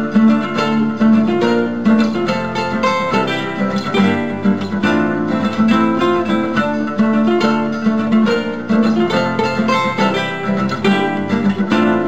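Background music: acoustic guitar playing quick plucked notes over chords.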